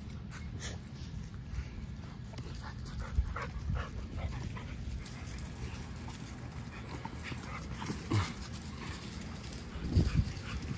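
Pit bulls playing rough over a tug toy: dog sounds and short scattered noises, with a few louder thumps about three, eight and ten seconds in.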